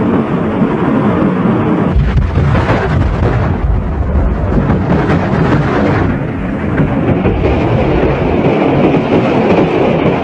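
Atlas-Centaur rocket exploding in flight: a continuous deep rumbling noise that grows heavier about two seconds in and eases slightly around six seconds.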